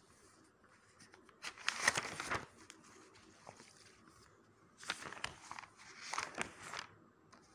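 Paper pages of a softcover book being turned and rustled by hand: a burst of page rustling about a second and a half in, then a second, longer bout about five seconds in.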